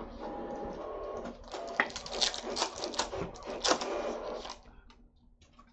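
Foil wrapper of a trading-card pack crinkling and crackling as it is torn open by hand. It stops about four and a half seconds in.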